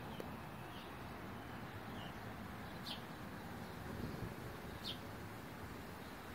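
A small bird chirping: a few short, high, downward-sliding chirps, the clearest about three and five seconds in, over a steady background hiss.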